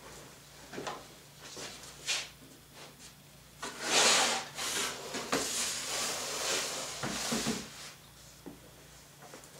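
Aluminium extrusion frame being slid across a sheet of Baltic birch plywood: a few light knocks, then a scraping slide of about four seconds, loudest as it starts.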